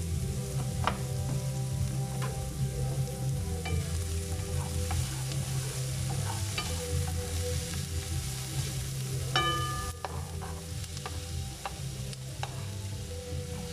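Chopped onions sizzling in a hot frying pan, with a wooden spatula stirring and scraping them around the pan in short strokes. A short ringing clink sounds a little past nine seconds in, and near the end sliced carrots are tipped in from a wooden board.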